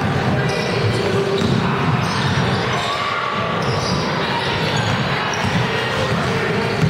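Live basketball play on a hardwood gym floor: the ball bouncing and sneakers squeaking, over a steady background of voices from players and spectators, echoing in the hall.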